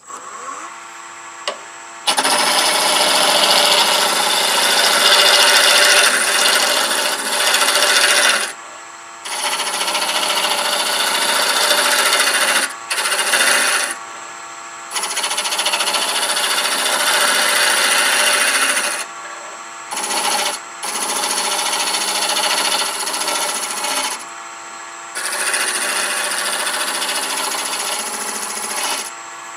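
Wood lathe motor spinning up, then a hand-held turning tool cutting a small spindle blank round in long, loud, rasping passes with short pauses between cuts, over the steady hum of the lathe.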